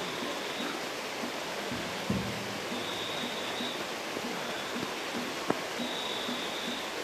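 Steady din of a large crowd walking and talking together. There is a short shout about two seconds in and a single sharp click about five and a half seconds in.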